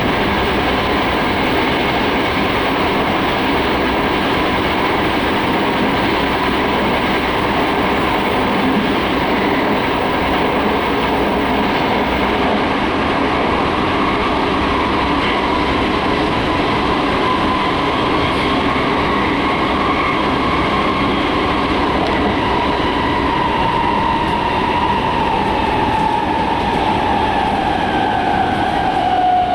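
Toyo Rapid Railway 2000 series electric train running at speed, heard from inside the carriage: steady wheel-and-rail rumble with a motor whine. The whine falls in pitch over the last few seconds as the train slows.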